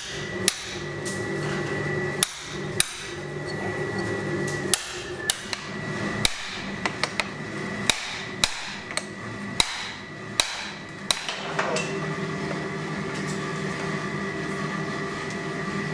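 Hand hammer striking steel on an anvil, about fifteen irregularly spaced blows that stop about eleven seconds in, over the steady hum of the forge's air blower.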